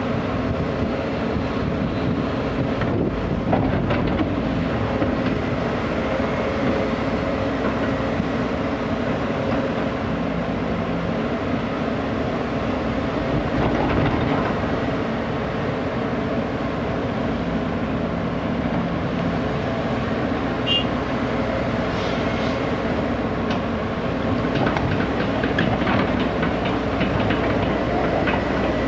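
Diesel engines of a Sumitomo SH210 hydraulic excavator and a tipper dump truck running steadily, with scattered metallic knocks as the excavator's bucket works soil in the raised dump bed, more frequent near the end.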